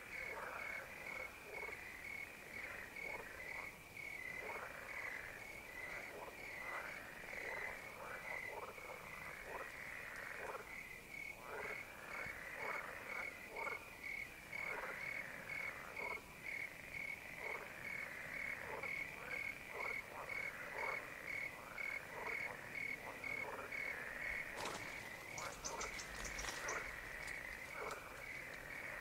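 Pond frogs calling in a dense chorus of short croaks that fall in pitch, over a steady cricket chirping at about two chirps a second. Near the end a brief run of sharp, high clicks joins in.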